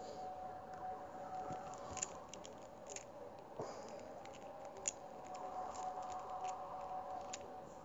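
A faint steady hum of two close tones, swelling slightly in the second half, with scattered soft clicks and crackles; the sharpest clicks come about two and five seconds in.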